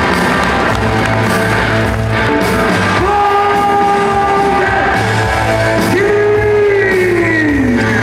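Rock music: a melody line of long held notes over a steady low pulse, with two long notes sliding down in pitch at their ends, the second near the end.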